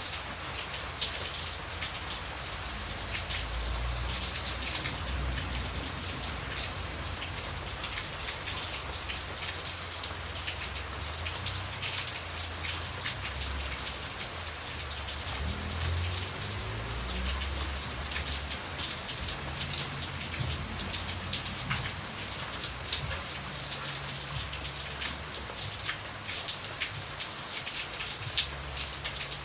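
Light rain falling steadily, with many individual drops ticking on a surface over an even hiss. A low, uneven rumble sits underneath.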